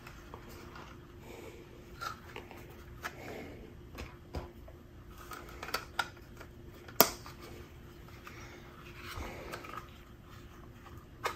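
Small clicks and light plastic handling noise as hardware posts and rubber spacers are fitted by hand into the back of a Kydex holster, with one sharper click about seven seconds in.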